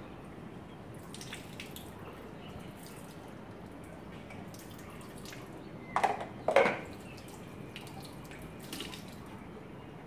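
Water from a bathroom tap running and dripping into a ceramic washbasin, with small splashes. Two short, loud knocks come about six seconds in.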